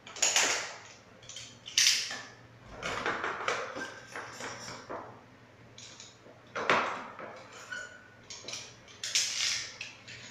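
Ferric chloride being scooped with a spatula from a plastic jar and tipped into a plastic tub of water: scraping and rattling, with four sharp knocks, the first right at the start, then about 2 s in, about 6.7 s in and about 9 s in.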